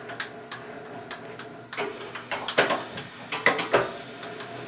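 Knee of a Wells Index milling machine being worked by hand at its crank: a regular light ticking about three times a second, then several louder metal clunks from about two seconds in.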